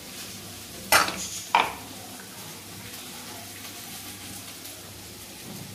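Two sharp metal knocks, about two-thirds of a second apart, as a container is rapped against the rim of a steel bowl to knock out ground rice batter. A faint steady hiss runs underneath.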